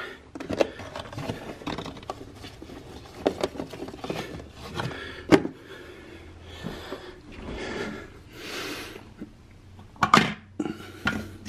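Household items being handled and shuffled in an under-sink kitchen cabinet: scattered knocks, scrapes and rustling. A few sharper clicks come near the end as a detergent pod is set into the dishwasher's plastic soap dispenser.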